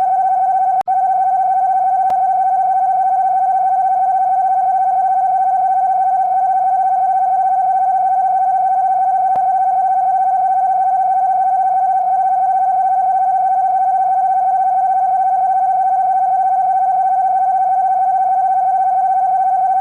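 Emergency Alert System-style alarm: a loud, steady electronic attention tone held without change, broken only by a very short cut about a second in.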